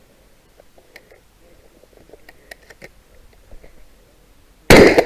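Faint scattered clicks and handling noises, then one very loud shotgun shot near the end.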